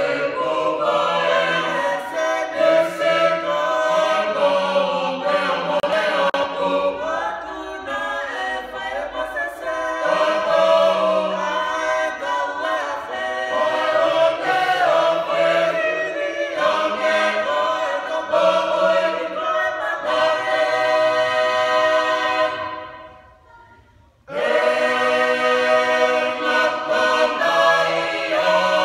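Mixed choir of men's and women's voices singing a Tongan song a cappella in parts. Near the end the singing fades away for about two seconds, then the whole choir comes back in together at full voice.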